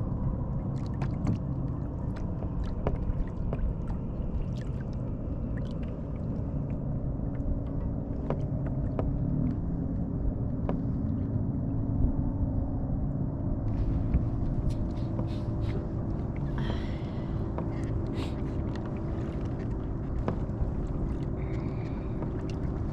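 Steady low rumble of a kayak moving across open lake water, with a faint steady hum under it and scattered small clicks and knocks.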